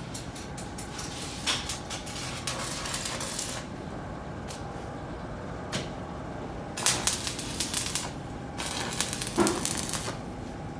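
Electric arc welding on a truck's steel floor plate: crackling and spitting in several short runs of a second or so, with pauses between them as the welds are laid in stages.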